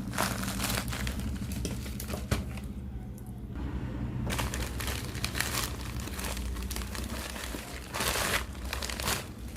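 Delivery packaging being crinkled and torn open by hand: irregular crackling and rustling, easing off for about a second and a half partway through, with a louder burst of crinkling near the end.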